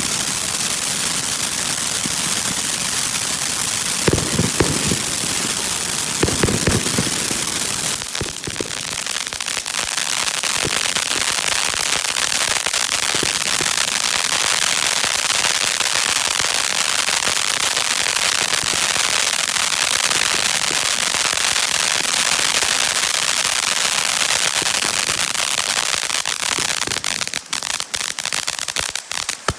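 Black Scorpion Grand Slam multi-tube fan fountain firework spraying sparks with a loud, steady hiss full of crackling. There are a couple of heavier bursts around four and six seconds in. Near the end the spray thins into separate sharp crackles.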